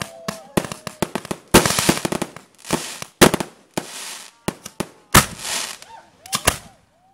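Aerial firework display: a rapid, irregular series of sharp bangs from bursting shells, several followed by a crackling hiss of the stars. People whoop briefly near the start and again near the end.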